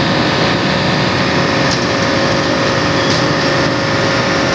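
Engine running steadily nearby, a constant drone with a steady whine over it.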